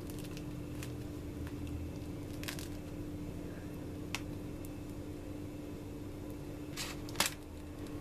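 Hands tearing open baked cheese börek on a parchment-lined tray: soft tearing and rustling, with a brief crackle about two and a half seconds in and a louder pair of crackles near the end, over a steady low hum.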